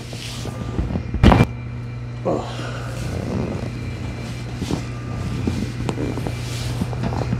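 Chiropractic mid-back adjustment: one sharp thump about a second in as the thrust is delivered, over a steady low hum.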